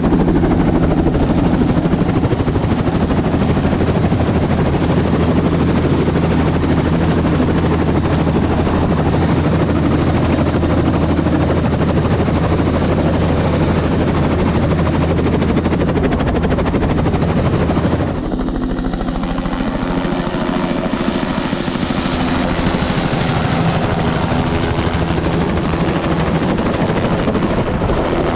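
Bell 206 JetRanger turbine helicopter running with its rotor turning: a loud, steady turbine-and-rotor drone. About two-thirds through, the sound changes abruptly, and the deep low hum drops away in a different take of the same running helicopter.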